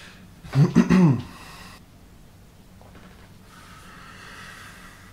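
A short wordless vocal sound, a hum or sighed breath with its pitch sliding up and then down, about half a second in. It is followed by faint, steady room hiss.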